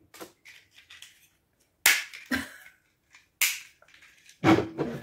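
Small hard-plastic toy car parts clicking and snapping in the hands: a few sharp clicks about a second apart, then a louder cluster of snaps near the end.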